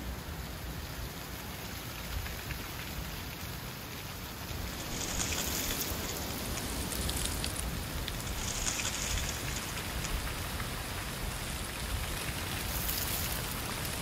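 Wind blowing dry fallen leaves, which rustle and skitter across asphalt in a steady crackly hiss over a low wind rumble. The rustle grows louder about five seconds in, with a few brighter gusts.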